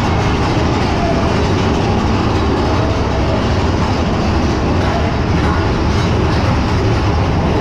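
Mine-train roller coaster running along its track: a loud, steady rumble of the cars' wheels on the rails.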